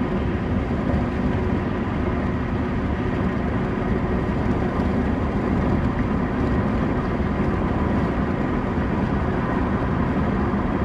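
Steady mechanical running noise, even and unbroken, with a few faint steady hums laid over a dense rumble.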